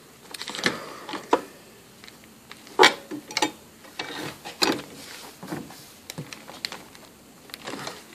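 Irregular clicks, taps and knocks of plastic and small metal parts as gloved hands work on a fuel pump module assembly, with the sharpest click about three seconds in.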